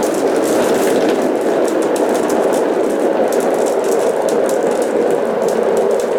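Many glass marbles rolling along cardboard marble-run tracks: a steady rolling rumble with rapid, scattered clicks of marbles knocking against each other and the track.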